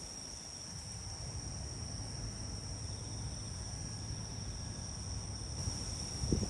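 A chorus of night insects calling steadily: an unbroken high-pitched trill, typical of crickets.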